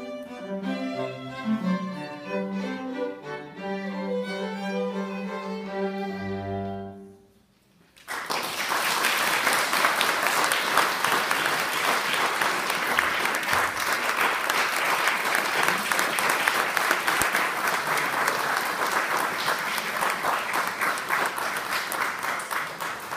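A string trio of two violins and cello plays the last bars of a fast finale, ending about seven seconds in. After a second's pause the audience applauds steadily.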